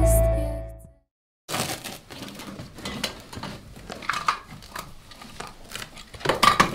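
Film score music fading out, then a moment of dead silence. After that, quiet irregular rustling and crinkling of clothing and small handling movements, with a louder flurry near the end.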